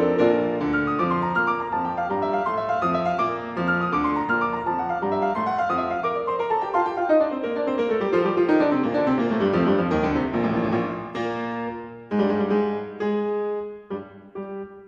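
Background piano music: a busy run of notes sliding downward, then a few held chords that die away near the end.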